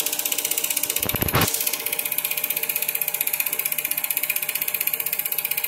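Old home-movie film projector running, its film-advance mechanism giving a rapid, even mechanical clatter. A brief louder rustle or bump comes about a second in.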